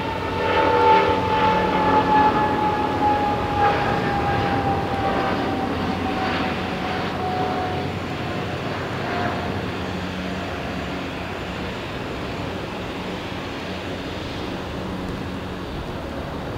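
Jet airliner's engines at takeoff power, passing and receding: a whine that falls slowly in pitch over about eight seconds above a broad rumble, the whole sound fading gradually.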